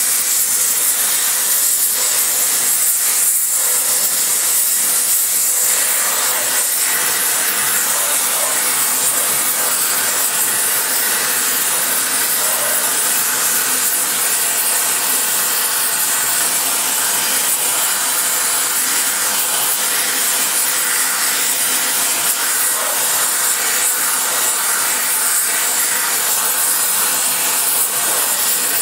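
Spray-welding torch flame hissing steadily as it plays over a cast-iron Ford FE 390 cylinder head during cast-iron spray welding.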